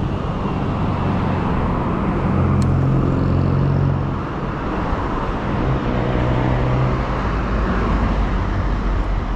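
Road traffic: a steady rush of road noise with the low hum of vehicle engines running close by, swelling and easing.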